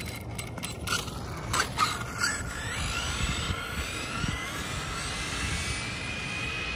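Redcat TR-SC10E 1/10 RC short course truck on a speed run: its brushless motor and drivetrain give a high whine that climbs in pitch as the truck accelerates down the road. A few clicks and knocks come in the first two seconds.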